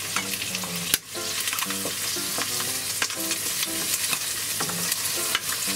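Chicken thighs sizzling steadily as they fry skin-side down in a dry non-stick pan, the skin crisping in its own rendered fat. A wooden spatula scrapes and nudges the meat around the pan. There is a brief drop in the sound about a second in.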